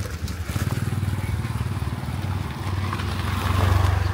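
Motorbike engine running close by, growing louder toward the end.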